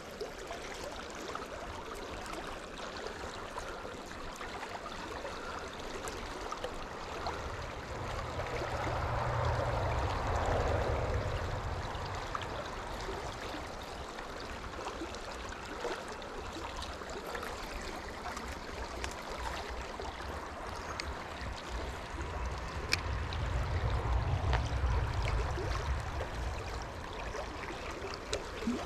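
Small shallow creek trickling and gurgling steadily over stones, with two stretches of low rumble, about eight to twelve seconds in and again about twenty-two to twenty-seven seconds in.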